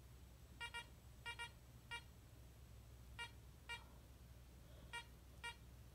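Garrett Ace 300 metal detector giving about nine short beeps at one pitch, some in quick pairs, as a gold locket is swept back and forth over its search coil.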